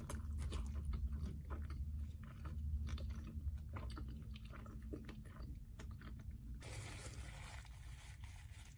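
A person chewing a mouthful of food close to the microphone, with many small wet mouth clicks and crackles. About two-thirds of the way in, the chewing grows fainter and a faint steady hiss comes in.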